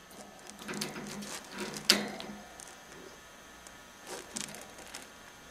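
Ferret moving about in a wire cage: scattered clicks and rattles of claws and body on the bars, with one sharp click about two seconds in and another short cluster of clicks just past four seconds.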